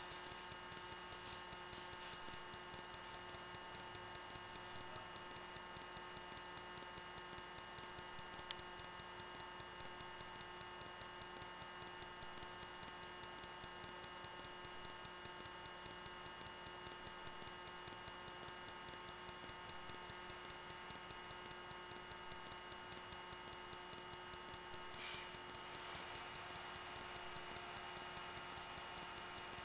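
Faint steady electrical hum and whine, several fixed tones over a low hiss, with a light regular ticking. It is typical of the pickup on a sewer inspection camera's recording gear. One sharp click comes about eight and a half seconds in, and a brief faint rustle comes near the end.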